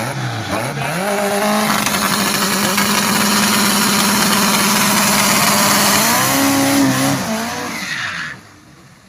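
A turbocharged car doing a burnout. The engine's revs climb about half a second in and then hold high and steady while the tyres spin and squeal. The revs shift near the end, and the sound drops away sharply.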